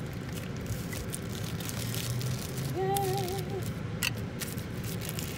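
Clear plastic bag and bubble wrap crinkling and rustling as sunglasses are worked out of their packaging by hand. A short hummed voice comes in about three seconds in, and a sharp click sounds just after four seconds.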